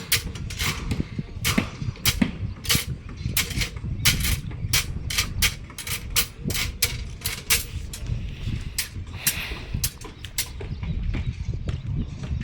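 Hammer blows on a building site: a string of sharp, irregular knocks and clangs, about two or three a second, over a low rumble.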